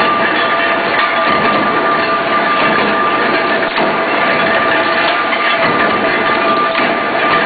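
Induction heating and nut-forging line running: a steady two-tone whine over a dense, continuous mechanical clatter, with a few metal knocks.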